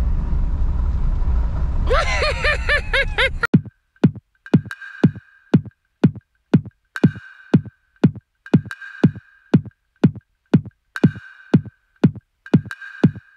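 A steady low rumble, then electronic music with a kick-drum beat of about two beats a second that starts about three and a half seconds in.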